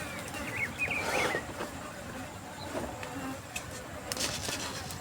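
A fly buzzing close by, its drone wavering in pitch, with a few short high chirps, like a small bird, within the first second.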